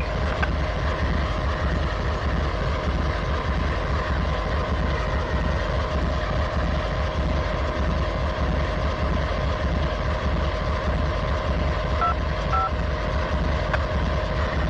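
Norfolk Southern GE AC44C6M diesel locomotive idling at a standstill: a steady low rumble with a steady whine over it. Two short high beeps sound about twelve seconds in.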